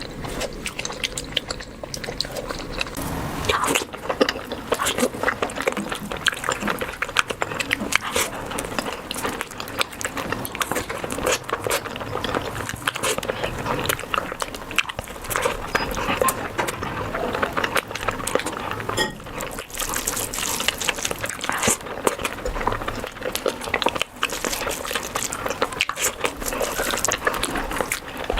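Close-miked wet eating sounds: a dense run of chewing, smacking and squelching as curry and rice are eaten.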